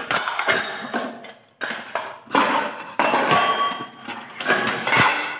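Stainless steel bowls, pots and tumblers clanking and ringing against one another as freshly washed dishes are handled and stacked, in a quick run of metal knocks with brief pauses.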